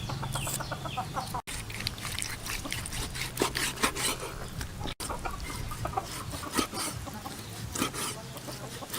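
Chickens clucking, mixed with irregular knocks and clicks; the sound drops out for an instant twice.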